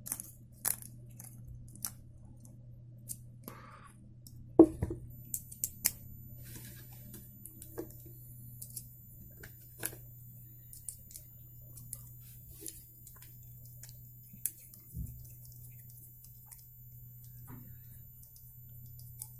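Scattered small clicks and taps of a precision bit screwdriver working the screws of an Ontario RAT-1 folding knife and of a bit being swapped from its case, with one sharper click about four and a half seconds in. A low steady hum runs underneath.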